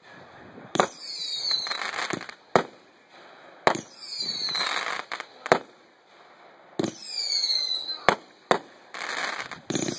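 Consumer firework cakes firing aerial shots: a string of sharp bangs a second or two apart, several followed by a short falling whistle, as the shells launch and burst overhead.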